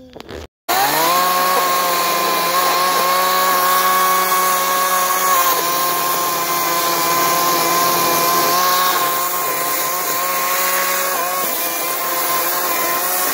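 Ryobi electric chainsaw starting up about half a second in and running at a steady high speed, with a whining motor tone, while cutting through dead brush branches. The pitch dips slightly a few times.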